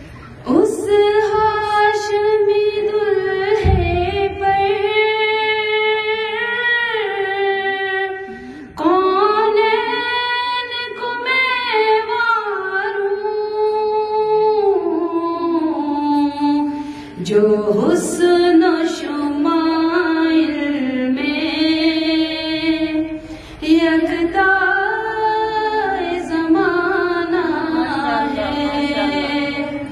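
A woman singing an Urdu naat unaccompanied, in long melodic phrases with held, gliding notes. There is a brief low thump about four seconds in.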